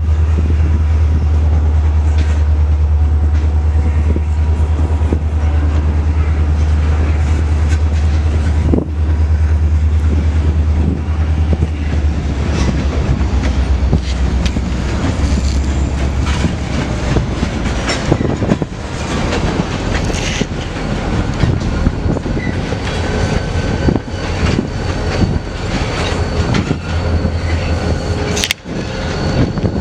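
CN EMD SD40-2 diesel-electric locomotive running, its 16-cylinder two-stroke diesel giving a steady low drone that fades after about sixteen seconds. Clicks and knocks from the wheels and cars grow denser in the second half.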